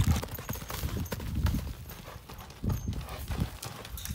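Quarter horse running loose, with irregular dull hoofbeats on soft turf and dirt.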